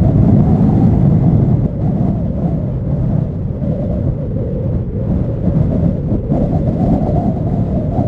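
Steady low rumble of a distant Boeing 737-800's CFM56 jet engines on final approach, mixed with gusty wind buffeting the microphone.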